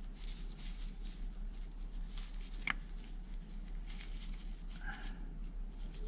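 Small clicks and taps of a metal backing shim being fitted onto a new brake pad by gloved hands, with one sharper click about two and a half seconds in, over a steady low hum.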